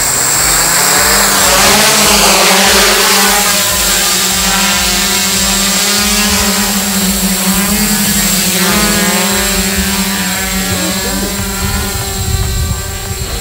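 Electric quadcopter (ActionDrone AD1) motors and propellers spooling up with a rising whir at takeoff, then a steady propeller hum whose pitch wavers as the aircraft lifts off, hovers and moves away.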